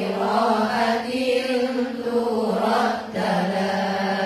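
Many young women's voices chanting a sholawat together in unison, in long held notes with a brief break for breath about three seconds in.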